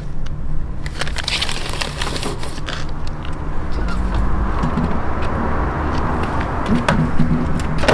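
A few sharp clicks and knocks as tape is packed into a small fire-engine equipment compartment and its door is swung shut, over a steady low rumble.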